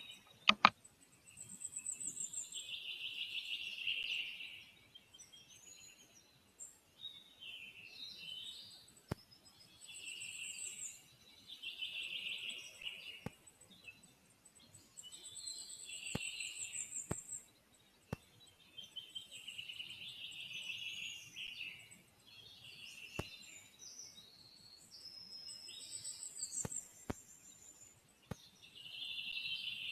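Songbirds singing in the forest: a song phrase of about two seconds repeated every few seconds, with short high thin trills in between. A few sharp clicks sound through it, the loudest just after the start.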